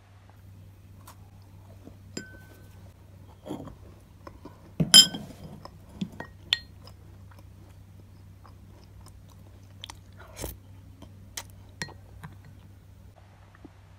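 Glass tableware clinking: a glass dessert cup, wooden spoon and glass saucer knocking together in scattered sharp clicks, with one loud ringing clink about five seconds in. A few crunchy bites of a cookie being chewed come between the clinks, over a steady low hum.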